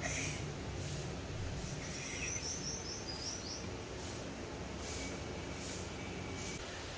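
Outdoor ambience: a steady low rumble with a short run of quick bird chirps about two seconds in and a thin, steady high note near the end.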